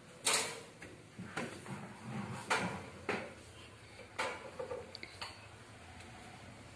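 Scattered metallic clanks and knocks, about six over several seconds, as the V-belts are handled on the electric motor's pulley of a turmeric grinding machine, with the motor stopped.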